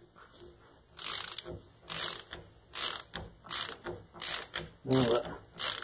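Hand ratchet wrench and socket turning the caging bolt of a truck's spring brake chamber to uncage it, a burst of ratchet clicks on each stroke. The strokes start about a second in and repeat roughly every 0.7 seconds.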